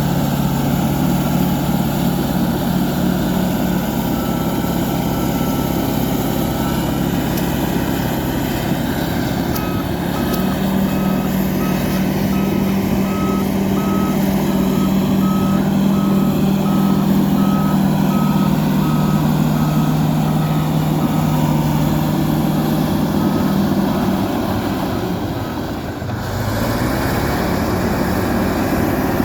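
Fiat-Kobelco bulldozer's diesel engine running steadily, with a reversing alarm beeping about once a second through most of the middle. Near the end the engine sound dips briefly and its note changes.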